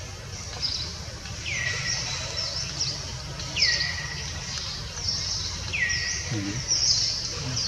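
Birds calling: a falling note that levels off, repeated about every two seconds, over continuous high chirping and low background noise.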